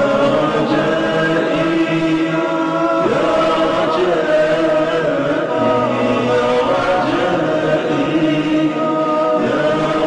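Voices of an Arabic nasheed chanting in a cappella harmony, a passage without clear words made of held, slowly gliding notes.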